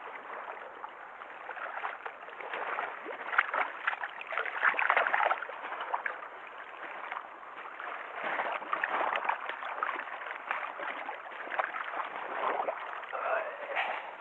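Water splashing and sloshing in irregular bursts, loudest about 3 to 5 seconds in and again around 8 to 10 seconds in, from a just-caught black sea bream thrashing in the water.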